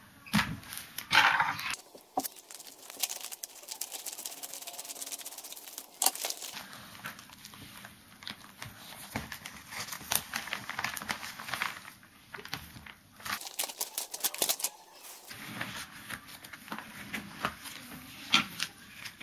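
Padded paper mailer envelope and paper packaging handled by hand: irregular crinkling and rustling, tearing, and scattered sharp clicks, loudest about a second in.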